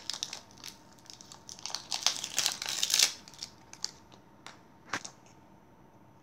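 Plastic wrapping crinkling as it is peeled off an L.O.L. Surprise ball, in bursts over the first three seconds, then a couple of sharp clicks near the end.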